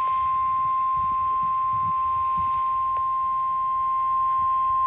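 NOAA Weather Radio 1050 Hz warning alarm tone: one steady high-pitched beep held without a break, the signal that a warning message is about to follow.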